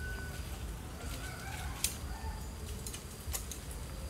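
Chickens crowing and clucking in the background, with a few sharp clicks of metal tongs on the grill, the loudest about two seconds in.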